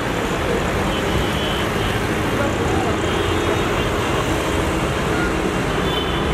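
Steady low rumble of an approaching diesel locomotive, with faint voices of people close by.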